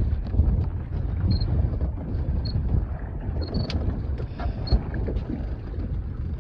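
Wind buffeting the microphone on an open boat, a steady low rumble with water and hull noise beneath it. Short faint high beeps sound now and then.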